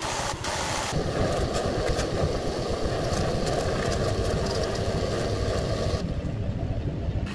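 A Ryobi 4x36 belt sander running with a metal block pressed on the belt. About a second in, this gives way to a bench grinder spinning a fibre wheel that grinds and deburrs the block. Near the end the block comes off and the grinder motor runs on alone, quieter.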